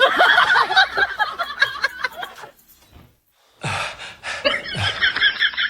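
Vocal sounds without words: gasping and snickering, laughter-like sounds, with a short break in the middle and a fast pulsing run near the end.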